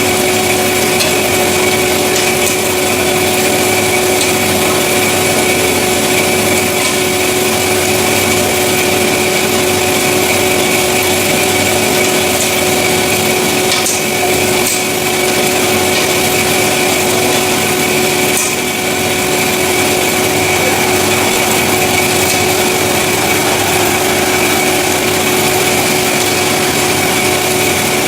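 CORMAK S-200R semi-automatic metal band saw running and cutting metal stock: a steady motor whine over a continuous sawing hiss.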